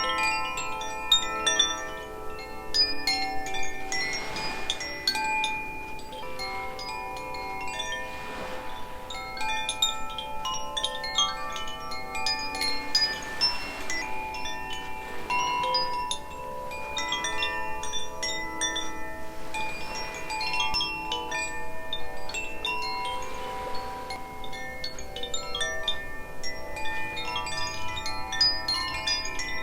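Aria and Ignis Koshi chimes rung together: their tuned metal rods, struck by the clapper inside each bamboo tube, make a continuous shimmer of many overlapping ringing tones with fresh strikes every moment.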